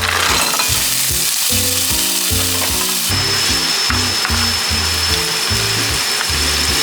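Food sizzling and frying in a hot pan, a loud, even hiss. A thin steady high whine joins it about three seconds in.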